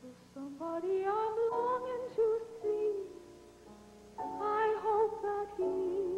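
Background music: a slow, sustained melody that climbs over the first two seconds, falls quiet around the third, and comes back in about four seconds in.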